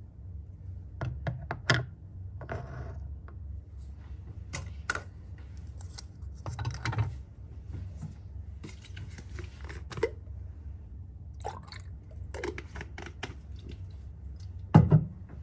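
Irregular light clicks and clinks of small hard objects being handled, with a few short rustles and a louder knock near the end, over a steady low hum.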